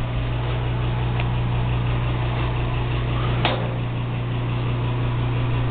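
Bathroom exhaust fan running with a steady hum and an even rush of air, with a single click about three and a half seconds in.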